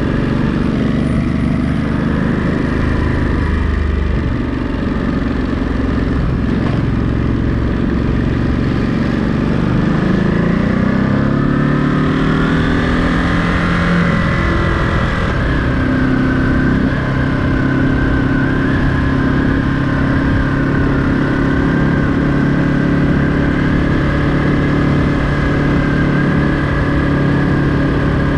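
Ducati Monster 937's 937 cc Testastretta L-twin engine running under way, its pitch rising as it pulls up to speed about ten seconds in, then holding steady at a cruising pitch.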